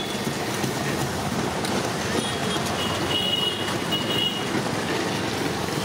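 Steady background noise of a busy street-food stall, with a few faint short high tones about halfway through.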